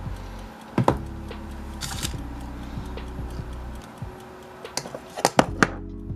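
A metal spoon clinking and scraping against a tub and mixing bowl while marshmallow creme is scooped out and scraped off: a few sharp clicks about a second in and a quick cluster of them near the end, over a low steady hum.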